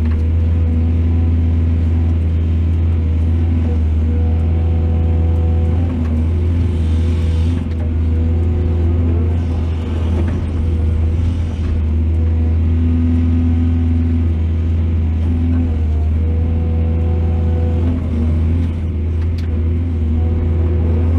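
Heavy diesel engine of an excavator running steadily under load: a loud, even low drone with higher tones that come and go.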